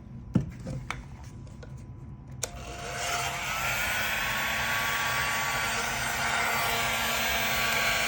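Bosch UniversalHeat 600 heat gun clicked on about two and a half seconds in, its fan spinning up with a rising whine into a steady rush of air, after a couple of handling clicks. It is being run to test that it works.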